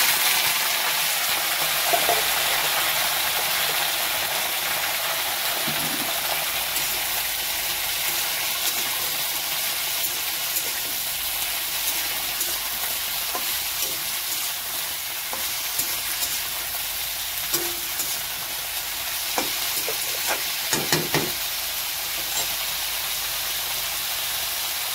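Chopped vegetables frying in hot oil in a kadai with a loud, steady sizzle that starts suddenly as they go in and slowly settles. A metal spatula stirring them scrapes and clicks against the pan now and then, most around twenty seconds in.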